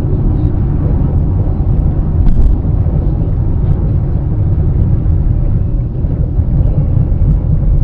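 Steady low rumble of a car's road and engine noise, heard from inside the cabin while driving at highway speed, with a brief knock about two seconds in.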